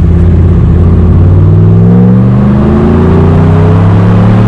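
Ram 1500's Hemi V8 accelerating under throttle through Totalflow 314633 mufflers on the dual factory exhaust, its exhaust note rising steadily in pitch.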